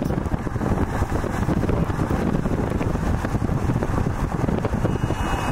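Wind buffeting the camera microphone: a steady, choppy low rumble and rush with no clear tone.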